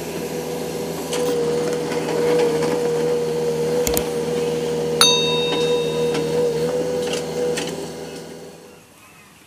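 JCB 3DX backhoe running under load, a steady hydraulic whine over the diesel engine as the bucket scrapes debris off the road, with a few knocks and one sharp ringing metallic clank about five seconds in. The sound fades out near the end.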